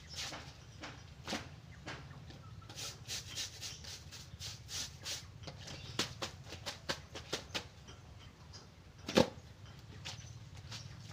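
Clothes being washed by hand in a basin of water: irregular splashes, drips and the rubbing and squeezing of wet fabric, with one louder slap about nine seconds in.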